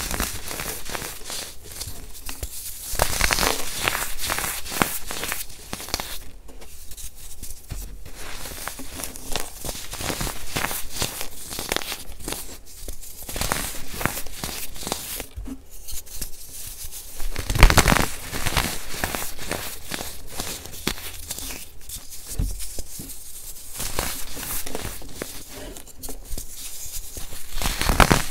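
Hands crushing and crumbling molded baking soda bars in a heap of loose baking soda powder: a dense run of crunching and crackling, with a louder crunch about two-thirds of the way through.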